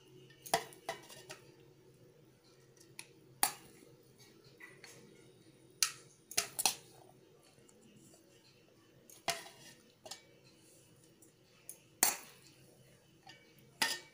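Sharp clinks of a serving utensil knocking against the rim of a metal cooking pot as cooked basmati rice is layered in over biryani chicken, about eight or nine knocks a second or few apart, some in quick pairs.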